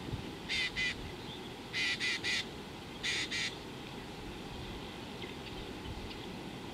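A bird giving seven short, harsh calls in three quick groups of two, three and then two, over a steady low background noise.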